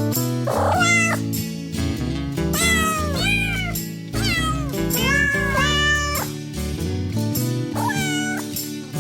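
Cat meows, a string of rising-and-falling calls, over background music with steady low chords.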